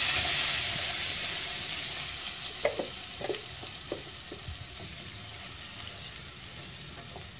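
Ground pumpkin-seed and peanut paste sizzling as it hits hot oil in a clay cazuela, loudest at first and dying down over several seconds. A wooden spoon scrapes the paste out of the blender jar and stirs it, with a few light knocks about three seconds in.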